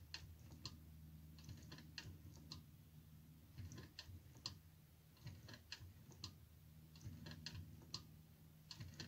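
Faint clicks in small groups, every second or so, from a Boxford lathe's cross-slide feed screw and handwheel as the slide is wound back and forth up to its grub-screw stop, over a low steady hum.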